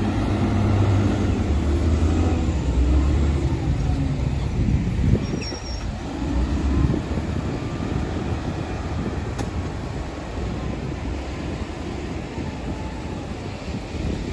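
Heavy diesel earthmoving machinery running, loudest in the first five seconds or so and then easing off somewhat, with a couple of knocks near the middle.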